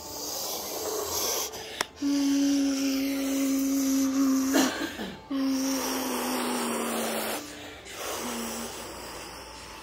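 A child's voice making a jet-plane noise: a breathy, held hum in two long stretches with a breath between them. The second stretch slides slightly lower, and a short one follows near the end.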